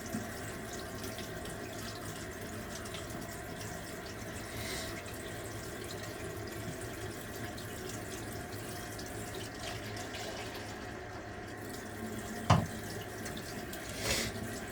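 Steady running water from a sink tap, an even unbroken rush, with a single sharp click about twelve and a half seconds in.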